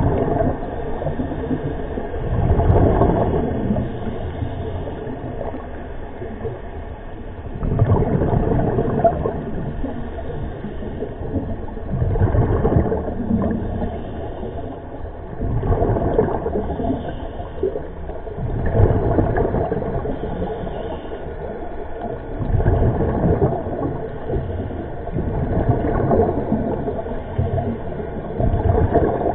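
Scuba diver breathing through a regulator, heard underwater: a bubbling rush of exhaled air about every three to five seconds, eight breaths in all, over a steady low rumble.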